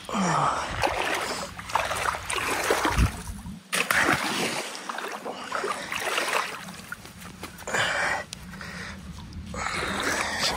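River water splashing and sloshing in repeated bursts as the stakes of a fish fence are wrenched apart by hand in the current.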